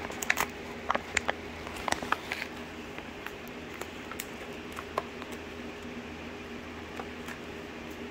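A small package being fumbled open one-handed: scattered crinkles and clicks, thickest in the first two and a half seconds and sparser after, over a faint steady hum.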